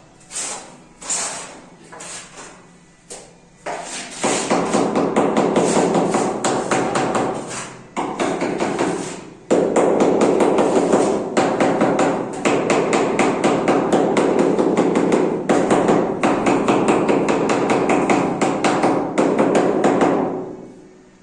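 Hammering, most likely on ceiling plaster or masonry. A few separate blows come first, then from about four seconds in a long run of rapid, continuous strikes with brief breaks, stopping near the end.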